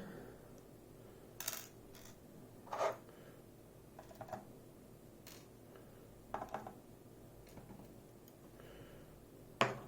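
Light metallic clicks and taps, about half a dozen scattered a second or more apart, as tiny pins are picked out of a Goal V18 dimple lock's pin chambers with a small tool.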